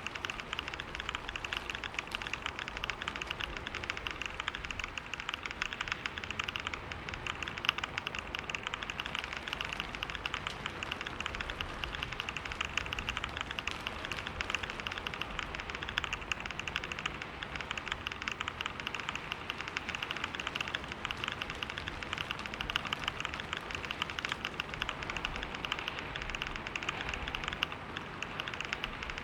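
Computer keyboard typed fast and without a break, a dense, rapid patter of keystrokes at about 125 words per minute.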